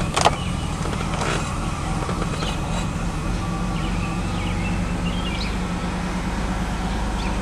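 2001 Ford Escape's 3.0 L Duratec V6 idling roughly and unevenly: an erratic idle with the check engine light on. A sharp click sounds just after the start.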